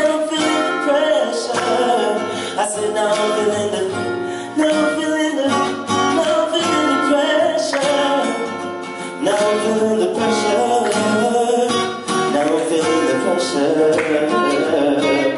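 Live acoustic guitar accompaniment with a man singing over it into a microphone, wordless or hard-to-make-out vocal lines rather than clear lyrics.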